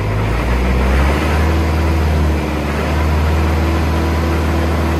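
Kubota M1-85 tractor's diesel engine running steadily with a low drone, driving a rotary tiller through the PTO so the tiller blades spin in the air.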